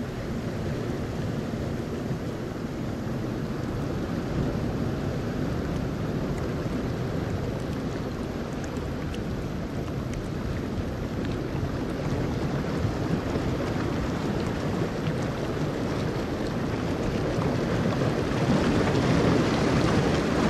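Steady rushing outdoor ambience of wind and water, with no distinct events, slowly getting louder toward the end.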